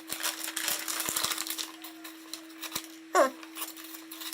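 Knife blade of a Sheffield 'The Hammer' 14-in-1 multi-tool being drawn through material in a sharpness test: a scratchy rasp with quick clicks for about two seconds, then a few single clicks. About three seconds in comes a short, loud falling squeak.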